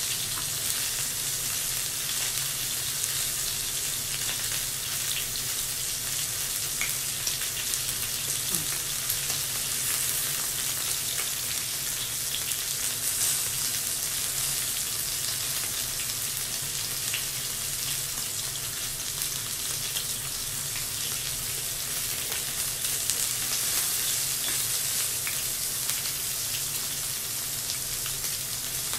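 Beef, pork and vegetables sizzling on a round tabletop yakiniku grill: a steady hiss with scattered small pops of fat.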